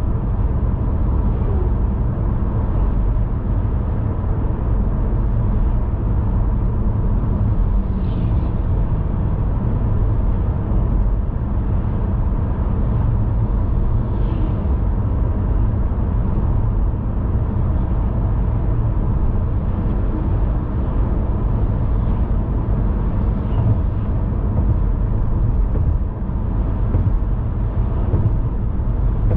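Steady low rumble of a car being driven: road and running noise, even throughout with no sudden sounds.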